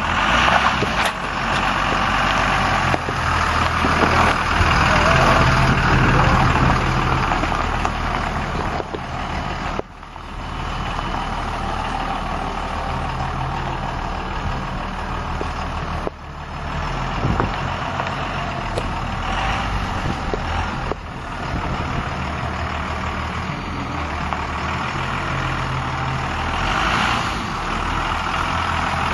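Dodge Ram pickup truck's engine running with a steady low note as the truck is driven slowly about. The sound breaks off briefly twice, about ten and sixteen seconds in.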